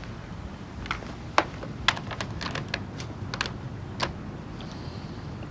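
Desk telephone being hung up: a run of light, irregular plastic clicks and taps over about three seconds as the handset is set back on its base, ending in a sharper click about four seconds in.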